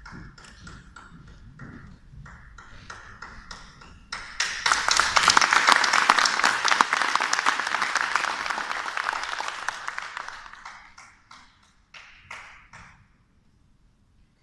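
Audience applause in a theatre: scattered claps that swell into loud, full applause about four seconds in, then die away, with a few last claps before it goes quiet.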